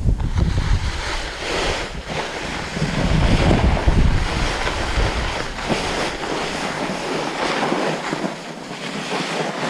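Snowboard sliding and carving over firm snow: a rushing scrape that rises and falls with the turns, mixed with wind rumbling on the microphone that eases near the end.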